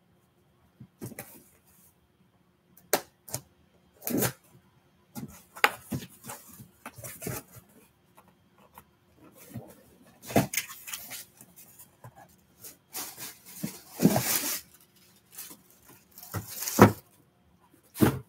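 A cardboard box being opened by hand: irregular knocks, scrapes and flap rustles, then the crinkling of a plastic bag as a bagged football helmet is lifted out. The loudest rustling comes about two-thirds of the way in.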